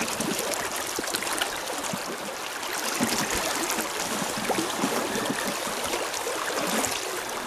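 River current flowing close by: a steady rush of water with small irregular splashes.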